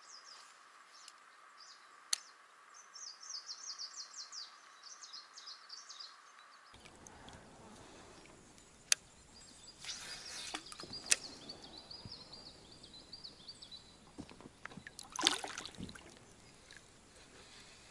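Quiet riverside ambience: small songbirds singing in runs of short, high chirps. A few sharp clicks and a brief rush of noise come about fifteen seconds in.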